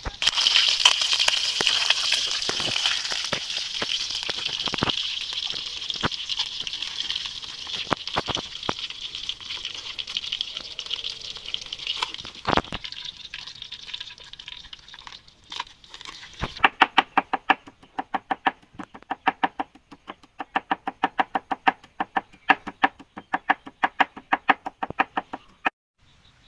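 Catfish frying in hot oil: a steady sizzle with scattered clicks of a utensil in the pan, slowly dying down. About sixteen seconds in it gives way to fast, even knocks, about five a second, which stop shortly before the end.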